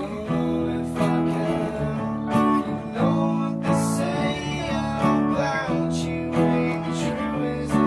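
Acoustic guitar strummed in a steady rhythm over digital keyboard chords, with a man singing: a live acoustic band performance.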